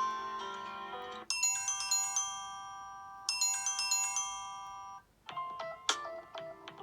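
Samsung Galaxy J2 Prime stock ringtones playing one after another. One melody ends about a second in, a bright chiming tune plays its phrase twice, and after a brief break near five seconds another ringtone of short notes begins.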